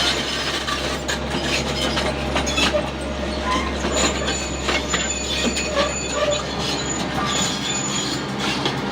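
Construction crane at work: a steady low engine hum under a continuous din of metallic clanks, clicks and short high squeals.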